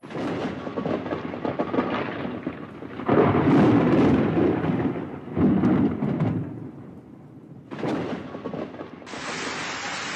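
Heavy hailstorm: hail and rain pelting down on a street and parked cars, a loud steady noise that swells twice in the middle. About nine seconds in it gives way to the steady rush of floodwater running down a street.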